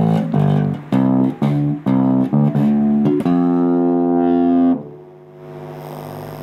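Electric bass played through a Joyo MA-10B micro bass amplifier: a run of about eight plucked notes moving upward in pitch, the last one held for about a second and a half before it stops. Near the end a steady buzz comes up from the amp, which the player puts down to his bass's pickup.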